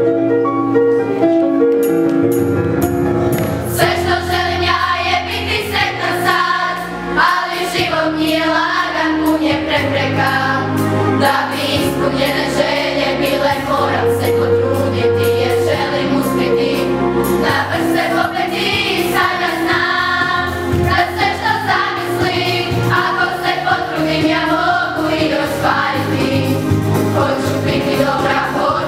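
Children's school choir, mostly girls' voices, singing a song with instrumental accompaniment. The accompaniment plays alone for the first three seconds or so before the voices come in.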